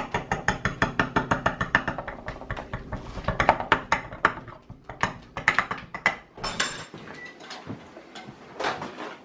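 A utensil repeatedly stabbing through a flour tortilla and tapping the plate beneath it, rapid at about five taps a second, then slower and more irregular; the wrap is being punctured so it won't bubble up when heated.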